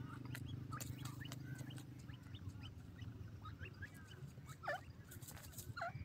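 Francolins calling: short, sharp chirps scattered through, the clearest about a second in and twice near the end, over a low hum that fades out after about two seconds.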